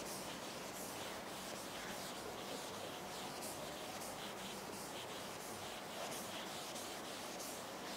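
Faint rubbing and swishing of a cloth duster wiping chalk off a blackboard.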